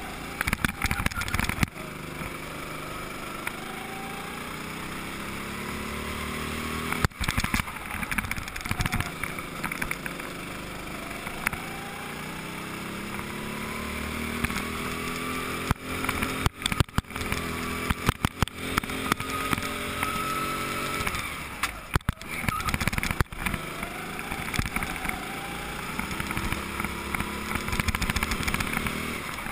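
Go-kart engine heard from on board, its pitch climbing three times as the kart accelerates along the straights and dropping back off between, with sharp knocks and crackles scattered through.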